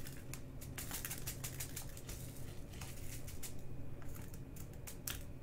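Small resin diamond-painting drills clicking against plastic as they are poured, a dense irregular scatter of tiny sharp ticks. A low steady hum runs underneath.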